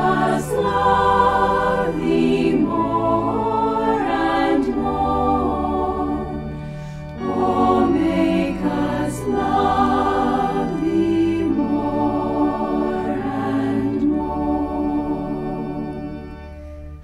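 Background choral music: a choir singing a slow sacred piece over sustained low notes, dipping briefly about seven seconds in and fading near the end.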